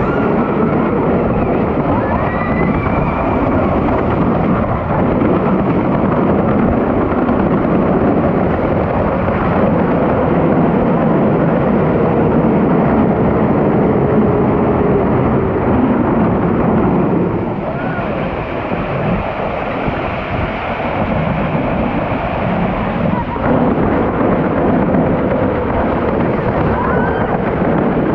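Inflatable tube sliding fast down a long plastic-mat slide: a steady rushing rumble of the tube over the mats, mixed with wind on the microphone. It eases off slightly for a few seconds about two-thirds of the way through.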